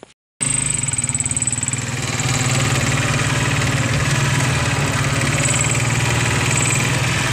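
Motorcycle engine running at a steady speed while riding, heard from on the bike with wind and road hiss; it comes in a moment after a brief silent cut.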